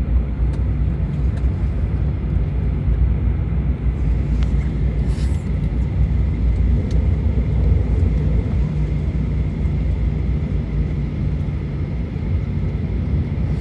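Steady low rumble inside the cabin of a Boeing 737-900 rolling on the ground just after landing: its CFM56-7B engines running near idle and the landing gear rolling over the pavement. A faint, high, steady whine sits above the rumble.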